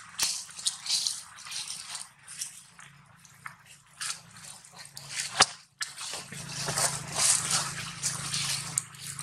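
Long-tailed macaque chewing food: irregular wet clicks and smacks, with one sharp click about five and a half seconds in.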